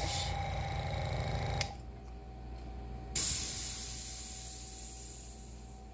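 Zeny airbrush compressor's motor running with a low, even pulsing, which stops with a click about a second and a half in. Then a sudden loud hiss of compressed air through the airbrush about three seconds in, fading steadily as the tank's stored pressure bleeds off.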